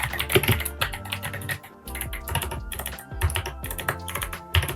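Typing on a mechanical keyboard fitted with Kailh Box White V2 clicky switches: a quick run of sharp keystroke clicks, with a short lull a little under halfway through.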